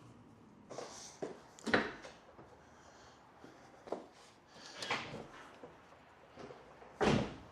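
Scattered knocks and clicks of tools and parts being handled, the loudest near the end.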